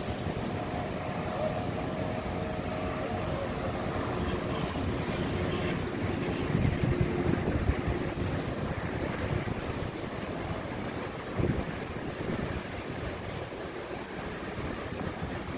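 Sea waves washing and breaking, with wind buffeting the microphone; the surf swells louder about halfway through. A faint engine hum fades out over the first few seconds, and a short thump comes about two-thirds of the way in.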